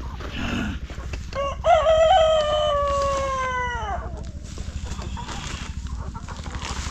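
A rooster crows once, about a second and a half in: a short rising start, then a long held note that falls away at the end.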